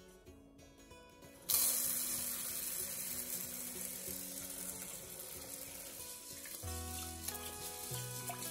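Kitchen tap water running into a rice cooker's inner pot of raw rice in a stainless steel sink, starting suddenly about a second and a half in. Near the end the rice is swished by hand in the water as it is washed.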